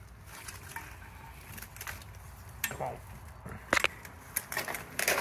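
A few light clicks and knocks over a low steady hum, the sharpest near four seconds in.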